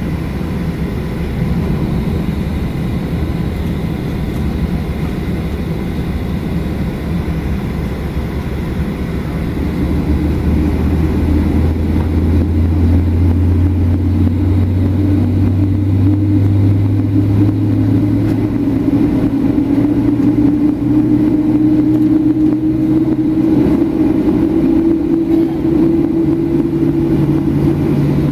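Cabin noise of a Boeing 737-800 taxiing, its CFM56-7B turbofans running in a steady drone. About ten seconds in, a low hum grows louder, and through the second half a tone rises slowly in pitch as the engines spool up a little.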